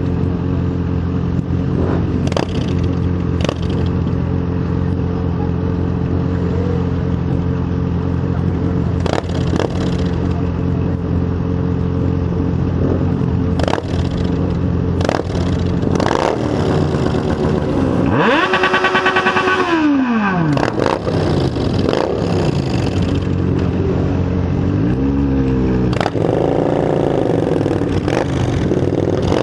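Motorcycle engine running steadily at low revs, then revved hard up and back down about two thirds of the way through, with two shorter blips of the throttle near the end. Brief knocks and clatter come and go throughout.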